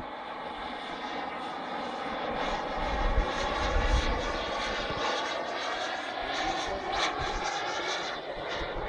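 Radio-controlled model jet flying past in the air: a steady, high engine whine made of several pitched tones that drift slightly in pitch as it passes.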